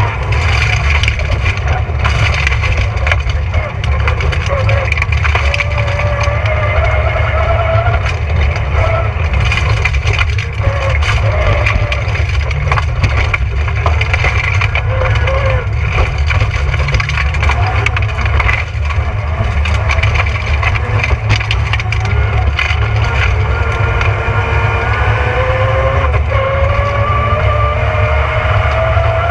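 Rally car engine driven hard on a gravel stage, its revs rising and falling and then climbing steadily near the end as it accelerates, with stones and gravel clattering and crackling against the car throughout.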